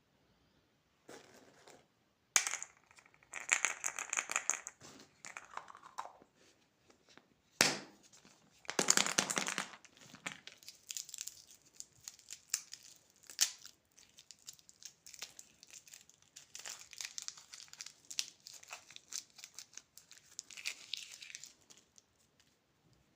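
Plastic candy wrappers being crinkled and torn open in irregular bursts, with sharp snaps, loudest about nine seconds in.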